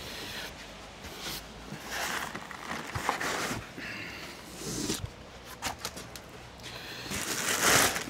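Cardboard and foam packaging rustling and scraping in several short bouts as the foam insert is lifted out of the box, then a plastic bag crinkling loudly as it is pulled open near the end.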